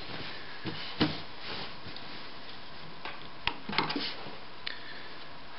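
Cloth being handled and placed on a sewing machine bed under the presser foot: soft rustling with a few sharp clicks, the loudest about a second in and a small cluster around three and a half to four seconds. No sewing is heard.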